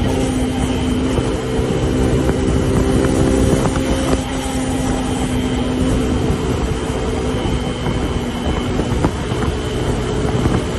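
Suzuki DR150's single-cylinder four-stroke engine running at steady high revs at top speed, heard from the rider's position over heavy wind rush and road noise. The engine note holds constant, with a brief break in its pitch about four seconds in.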